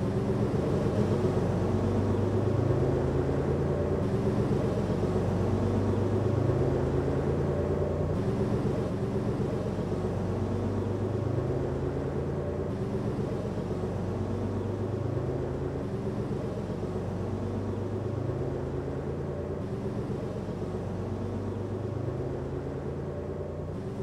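Bus engine running as the bus drives off, its pitch stepping up and down as it moves through the gears, growing slowly fainter.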